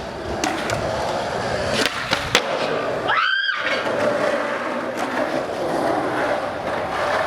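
Skateboard wheels rolling on concrete, with several sharp clacks of the board in the first two and a half seconds from pops and landings. About three seconds in the sound briefly cuts out with a short rising tone, then the rolling goes on.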